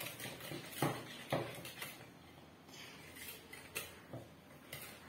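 Wire whisk clinking against the sides of a glass mixing bowl while beating butter, sugar and egg into cookie dough: a handful of irregular taps and clicks.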